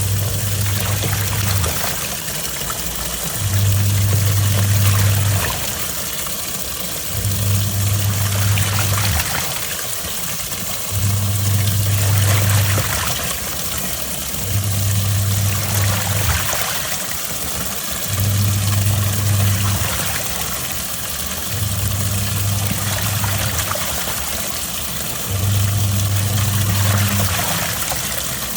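Twin-tub washing machine running its wash cycle: the motor hums in runs of about two seconds with short pauses between, as the pulsator turns one way and then the other, while water and clothes slosh in the tub throughout.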